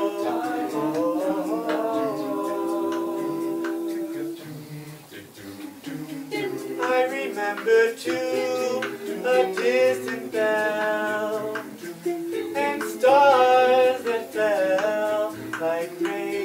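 Male a cappella group singing in close harmony: held chords at first, then from about six seconds in an upper lead voice with vibrato sings phrases over lower backing voices.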